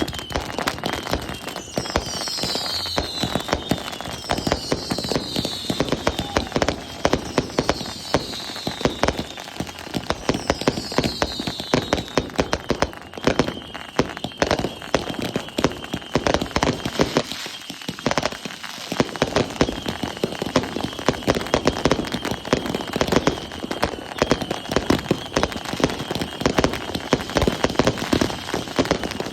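Consumer fireworks crackling, a dense stream of rapid pops and crackles with a short lull about eighteen seconds in. Four whistles falling in pitch sound one after another in the first twelve seconds or so.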